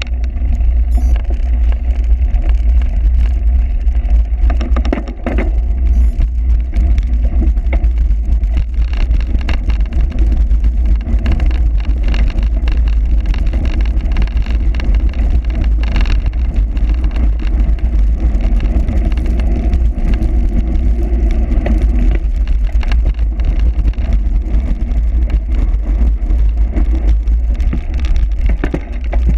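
Heavy wind rumble on the microphone over constant rattling and tyre noise from a cyclocross bike being ridden over rough ground.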